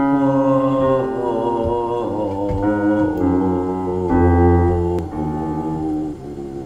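A woman with a very low voice singing sustained notes into a studio microphone, stepping down a scale note by note in a low-range vocal test.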